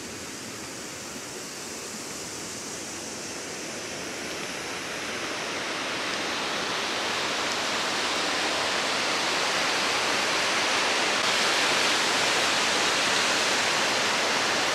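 Rushing mountain water, a steady hiss that grows gradually louder over the first ten seconds or so and then holds.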